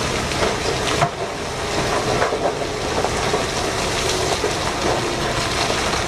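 A load of rock and coal sliding and pouring out of a giant mining dump truck's raised bed: a steady rushing, rattling noise with a few sharp knocks of falling rock.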